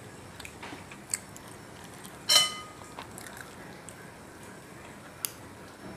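Close-miked eating and serving sounds: soft chewing and handling of food, with a metal spoon clinking against a plate once, a little over two seconds in, and a sharp click near the end.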